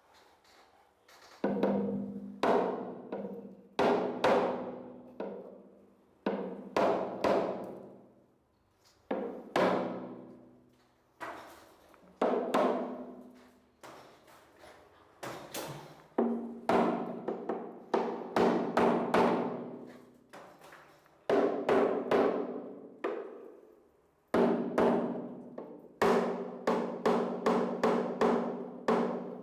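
Hammer blows knocking the wooden curtain-box framing down to adjust its height, struck in irregular clusters. Each blow is followed by a pitched ringing from the board that fades over about a second.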